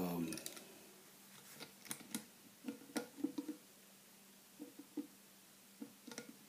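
Faint, irregular small clicks and scrapes of a steel screwdriver working against a stainless Smith & Wesson Model 500 revolver frame, prying to pop its sideplate off.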